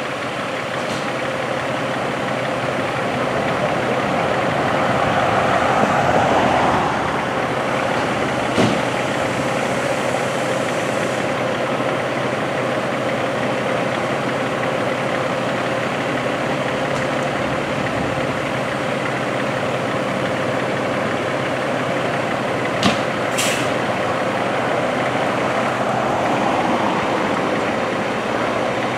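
Fire trucks' diesel engines idling with a steady hum, swelling louder for a couple of seconds around five seconds in. A single sharp knock comes about a third of the way through, and two more in quick succession about three-quarters of the way through.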